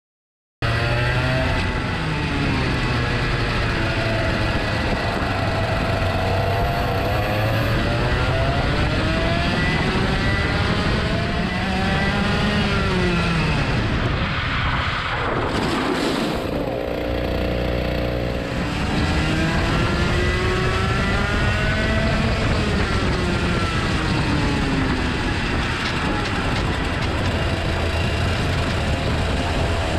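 Two-stroke kart engine heard onboard, its pitch climbing on the straights and falling away under braking into the corners, over and over. Near the middle the revs drop sharply and stay low for a couple of seconds before building again.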